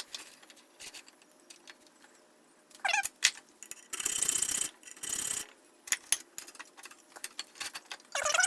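Hand file rasping across the steel spine of a mower-blade cleaver: two strokes, about 4 and 5 seconds in, with small clicks of metal between. A short pitched animal call comes about 3 seconds in and again near the end.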